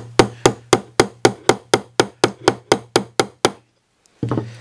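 A wooden mallet driving a 1/4-inch oak dowel peg into a drawbored mortise and tenon: quick, even blows, about four a second, stopping about three and a half seconds in. The peg is being forced through offset holes, which pulls the joint's shoulder tight.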